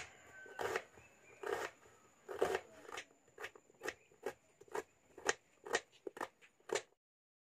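Knife cutting through a red onion on a wooden chopping board: a few slower slicing strokes, then quicker chops about two a second, each a crisp crunch and tap on the board. The sound cuts off suddenly about seven seconds in.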